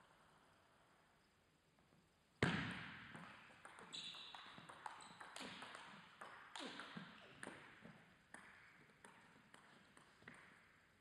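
Table tennis rally: a ping-pong ball clicking off paddles and table again and again, echoing in a large hall, starting with a loud sudden sound about two and a half seconds in. Voices call out during the play.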